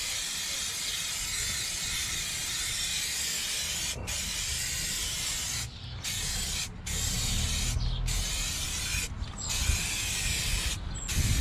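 Aerosol spray can of primer spraying in hissing passes: one unbroken pass of about four seconds, then shorter passes with about five brief stops as the nozzle is released.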